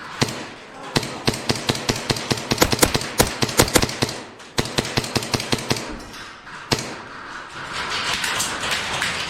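Airsoft gunfire in close quarters: a rapid string of sharp shots, about five a second, from about a second in until about four and a half seconds, then two single shots. A rustling hiss follows near the end.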